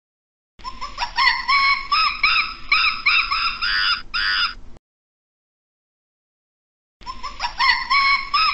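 A primate's call: a rising note followed by a quick run of high, arched hoots, about three a second, that cuts off suddenly. After about two seconds of silence the same call starts again.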